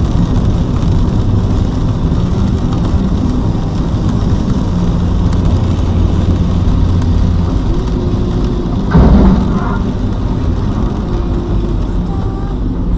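Steady engine and road noise heard from inside a car driving on a wet highway in heavy rain. A loud, short low boom about nine seconds in.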